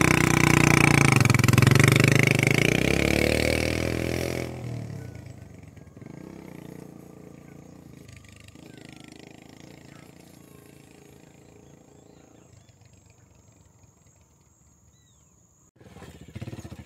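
Small dirt bike engine revving up hard as the bike pulls away, then fading steadily as it rides off into the distance. Near the end the sound jumps suddenly to another engine running close by.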